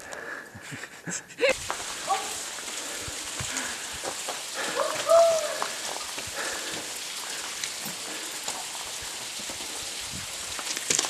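A few footstep-like clicks, then about a second and a half in, the steady, even rush of a waterfall sets in and carries on unbroken. A few short pitched calls sound over it early on.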